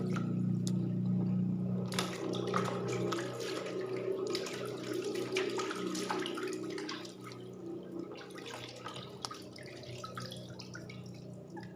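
Water running and splashing, with scattered small knocks and clicks, over a steady low hum; it gets quieter about seven seconds in.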